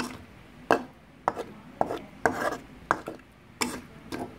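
Metal spatula scraping and knocking against a wok as it turns over saucy cooked prawns: about eight short strokes, roughly two a second.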